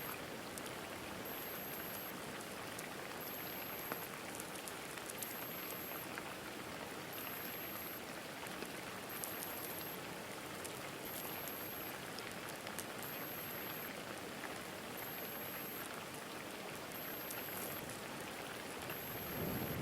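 Steady rain pattering on the eagle nest and the nest camera, with scattered sharp ticks of individual drops.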